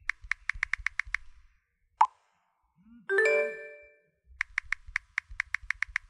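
WhatsApp messaging sounds: a quick run of phone keyboard tap clicks, then a single sharp pop about two seconds in, like a message being sent. About a second later a short, bright notification chime of several notes rings and fades, and the keyboard tapping starts again.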